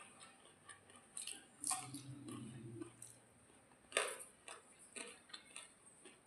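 Close-up mouth eating sounds of someone eating soaked rice: chewing and lip smacks with scattered sharp clicks, the loudest about four seconds in. A brief low hum comes about two seconds in.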